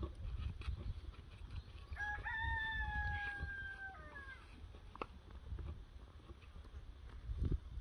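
A rooster crowing once, about two seconds in: one long call that holds its pitch and drops away at the end. Low rumble and a dull thud near the end lie underneath.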